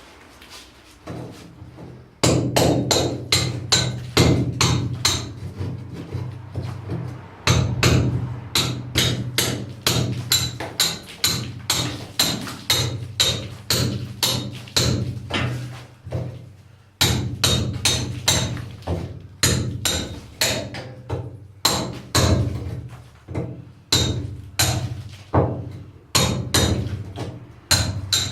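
Hammer striking a chisel to cut a chase into a masonry wall by hand: a steady run of sharp blows, about two to three a second, beginning about two seconds in.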